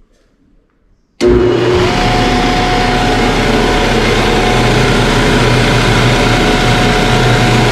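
Galaxy Super 2000 drum floor sander switched on about a second in, its motor and newly fitted sanding belt then running at a steady speed with a steady whine. The machine is being run to check that the new belt tracks evenly.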